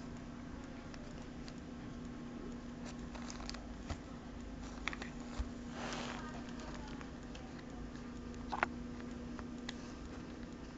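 Faint handling noise from a mobile phone being held and operated: a few scattered light clicks and a short rustle about six seconds in, over a steady low hum.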